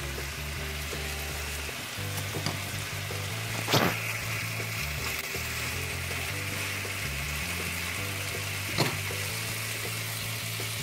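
Diced chicken, potatoes, onions and carrots sizzling steadily in a frying pan as they are stirred, with two sharp knocks of the utensil against the pan about four and nine seconds in. Soft background music with a bass line runs underneath.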